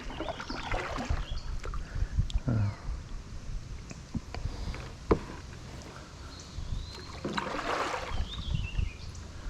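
Scattered knocks and bumps on a canoe hull, with light water sounds; one sharp knock stands out about five seconds in.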